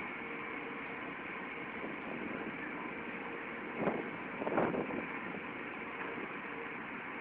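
Steady industrial machinery noise with a faint hum at a few pitches. Two short, louder noises come close together about four seconds in.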